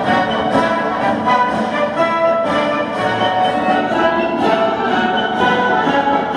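Orchestral music with strings and brass playing.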